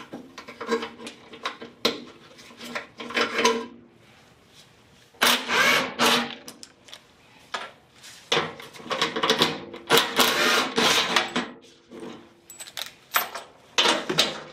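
Cordless driver whirring in a series of short runs of a second or two, backing out the bolts that hold a furnace blower motor to its housing.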